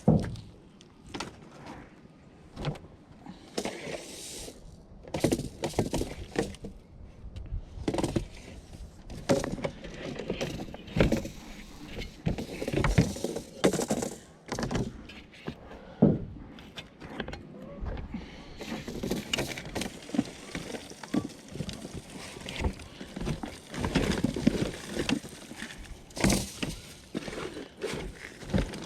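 Irregular knocks, clanks and clatter of junk being handled and moved about while rummaging through a curbside trash pile.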